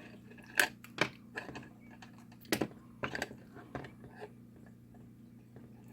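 Scattered small clicks and taps, about eight at irregular spacing, from the battery LED worklight's push-button switch being pressed and the light and its meter test leads being handled.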